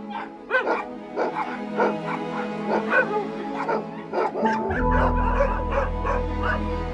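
Many dogs barking and yelping in quick, overlapping calls over a background music bed. A deep bass note in the music comes in about five seconds in.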